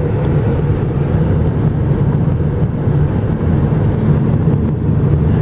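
Steady road noise of a moving car heard from inside the cabin: a low, even rumble of tyres and engine.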